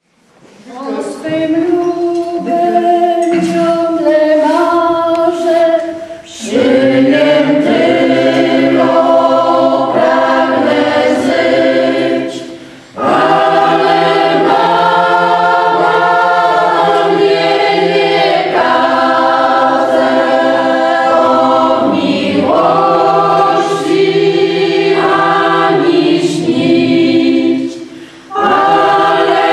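A group of women singing a folk song together without accompaniment, in long held phrases with short pauses for breath between lines.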